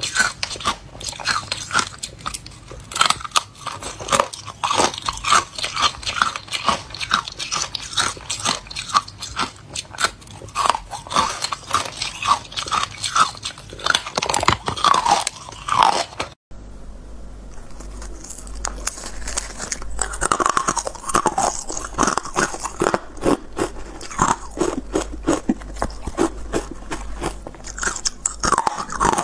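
Crunching and chewing of carbonated white ice close to the microphone, with many crisp bites a few per second. About halfway through, the sound breaks off abruptly and another recording of spoon-shaped ice being bitten and chewed begins.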